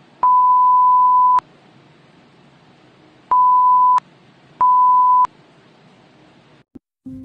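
Electronic 1 kHz beep tone, the kind dubbed in as a censor bleep, sounding three times: one long beep of about a second, then two shorter ones close together, each switching on and off abruptly over a faint hiss.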